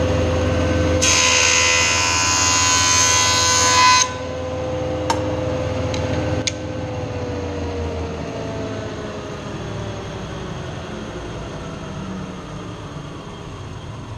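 Woodworking jointer running, its motor humming steadily; the cutterhead planes a board's face in one pass for about three seconds, a loud ripping hiss. After a couple of sharp clicks, the motor's hum slowly drops in pitch as the machine winds down.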